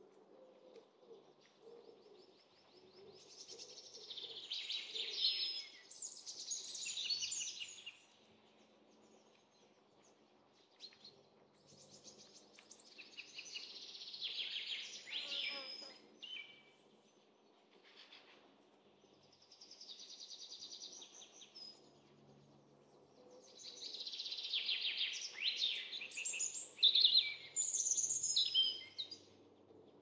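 Small songbirds singing in the forest: quick, varied high-pitched phrases in four stretches of a few seconds each, with quiet pauses between them, loudest near the end.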